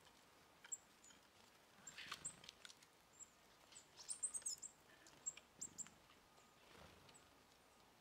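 Small songbirds at a winter bird feeder giving short, high chirps, with a quick flurry of chirps about four seconds in. Faint rustling about two seconds in and again near the end.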